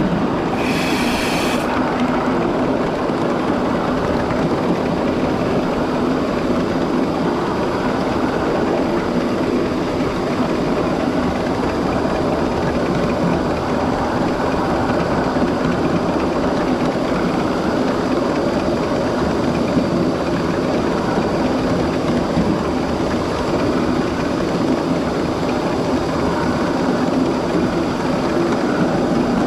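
7.5-inch gauge live-steam miniature train running along the track, a steady rumble of wheels on rail. A brief shrill tone sounds about a second in.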